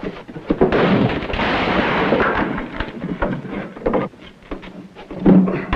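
Sounds of a brawl: a loud burst of crashing and scuffling about a second in, then repeated thuds and knocks of bodies and furniture being struck.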